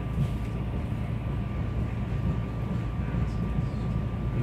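Steady rumble of a SEPTA Regional Rail electric commuter train as it runs along the track, heard from inside the passenger car, with a faint steady high whine.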